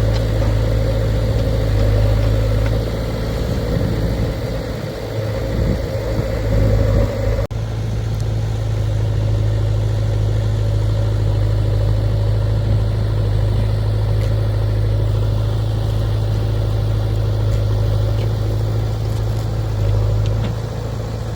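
Diesel engine of heavy machinery running steadily with a deep, even hum. The sound changes abruptly about seven seconds in, then carries on steadily.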